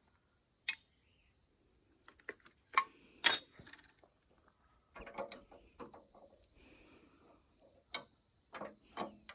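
Metal wrenches clinking and clanking against a backhoe's hydraulic hose fitting as one size after another is tried, the loudest a sharp ringing clank about three seconds in. Crickets keep up a steady high chirring behind.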